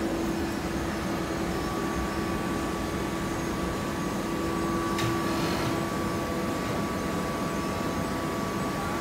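Hydraulic baling press running: a steady machine hum with a constant tone and a single sharp click about five seconds in.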